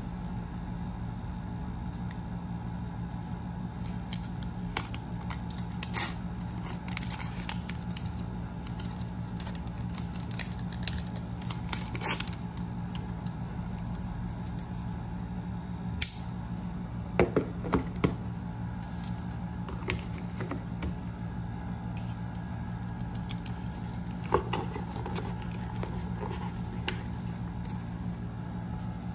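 Unboxing handling noise: light clicks, taps and scrapes of the MacBook Air's white power adapter and cardboard packaging tray being picked up and moved, with a cluster of sharper clicks a little past halfway. A steady low hum runs underneath.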